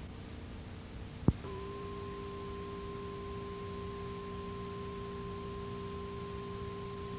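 A sharp click a little over a second in, then a steady electronic test tone of two pitches, one low and one higher, held unchanged together over a low electrical hum, as laid under a video title slate.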